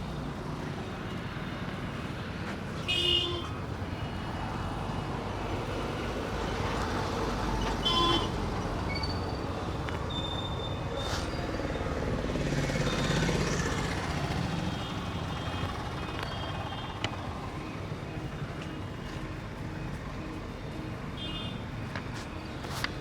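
Steady street traffic noise with short vehicle horn toots at about 3 s, 8 s and 21 s, and a louder vehicle passing near the middle. A couple of sharp clicks are also heard.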